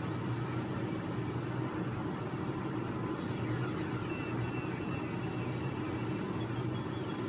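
Steady vehicle engine hum and road noise heard from inside a car's cabin, with a faint thin high tone coming in about halfway through.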